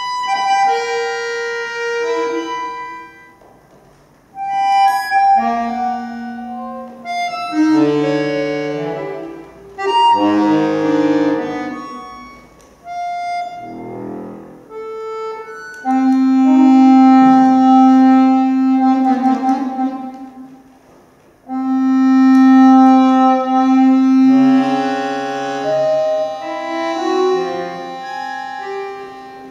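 Solo accordion playing contemporary concert music: held chords and dissonant clusters that break off twice into brief near-silences, with a busier stretch of quickly changing notes about a third of the way in and long, loud sustained chords over a low held note in the second half.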